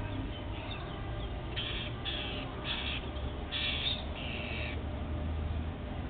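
Rose-ringed parakeets giving a run of five short, harsh screeches, starting about a second and a half in.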